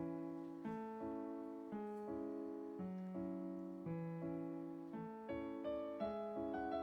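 Background piano music: a gentle, slow melody over steadily repeating chords.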